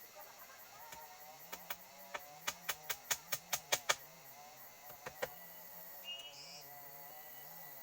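A quick run of about a dozen sharp knocks, roughly four a second, then two more a second later; a few short high chirps follow near the end.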